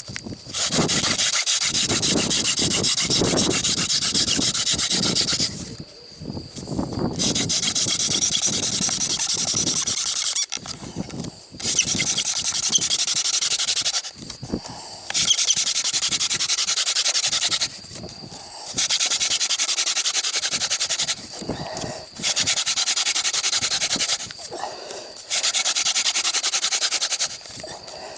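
Hand drill friction fire-lighting: a wooden spindle spun back and forth between the palms, rubbing against the hearth board. It goes in about seven bouts of two to five seconds each, with short pauses between.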